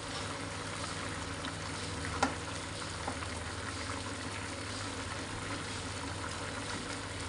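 Chicken feet, gizzards and livers simmering in sauce in a pan, with a steady bubbling sizzle while a spatula stirs them. A single sharp knock sounds a little over two seconds in.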